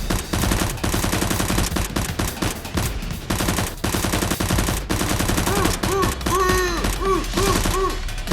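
Rapid automatic gunfire, shots close together without a break. From a little past halfway a row of short tones joins in, each rising and falling, about three a second.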